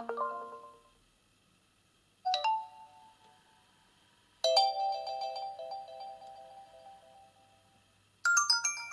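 OPPO A91 smartphone's built-in alert tones played one after another: four short electronic chimes, each starting sharply and dying away, about two seconds apart. The third rings on longest, and the last starts near the end.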